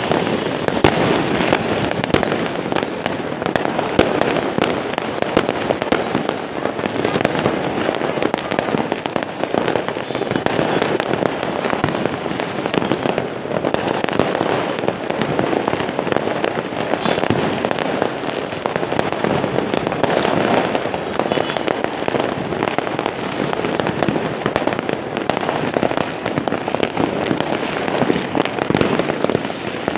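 Many fireworks going off at once: a dense, unbroken barrage of overlapping crackles and pops, with sharp cracks standing out throughout.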